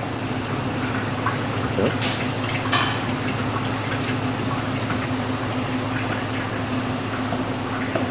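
Steady machinery hum of a commercial kitchen's equipment, with a couple of brief clicks about two and three seconds in.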